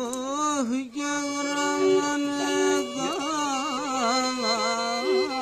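Pontic lyra played with a held drone under an ornamented melody, with a man singing along in a bending, melismatic line.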